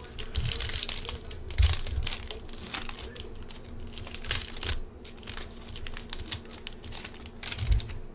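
Foil wrapper of a trading card pack crinkling as it is torn open by hand, a dense run of crackles that thins out after about five seconds.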